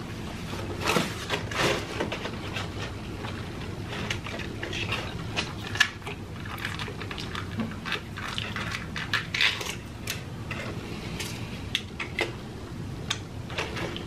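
Close-miked chewing of crispy fried food, with irregular crunches, crackles and wet mouth and finger-licking sounds over a faint steady low hum.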